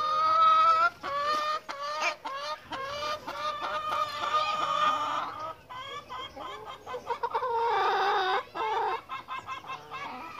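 A flock of hens clucking and calling, with several long, drawn-out calls among quick short clucks.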